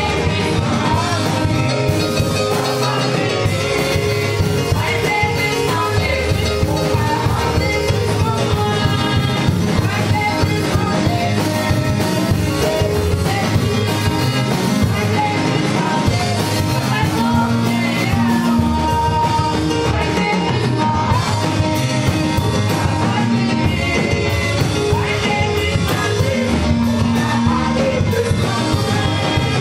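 Gospel singing in church: men's voices singing over instrumental accompaniment with a steady beat.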